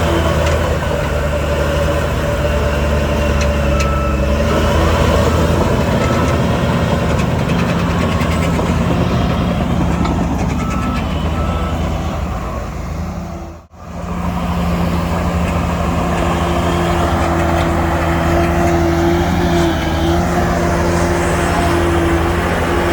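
Diesel engines of a bulldozer and dump truck running steadily, with a reversing alarm beeping during the first half. The sound drops out sharply just past halfway and then resumes.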